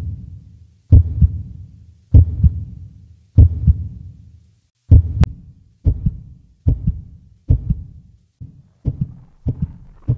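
Heartbeat: paired low thumps, each strong beat followed closely by a second, repeating and speeding up through the second half.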